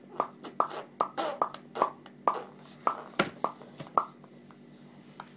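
Mouth pops made over and over, about fifteen short hollow pops in quick, uneven succession, each with a brief ringing note that drops in pitch.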